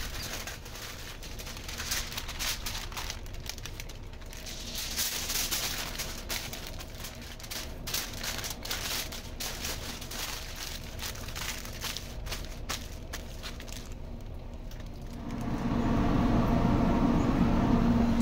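Aluminium foil crinkling and crackling as it is crumpled and pressed by hand around a beef shank. Near the end a louder steady hum with a low tone takes over, from the running pellet smoker.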